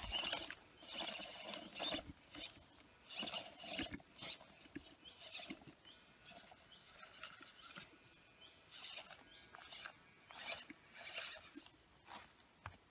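1/14 scale RC rock crawler clambering over stones, its tyres and chassis scraping and crunching on rock in irregular bursts.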